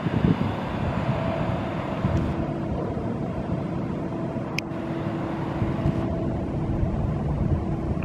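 Wind buffeting the microphone in gusts over a steady low machine hum.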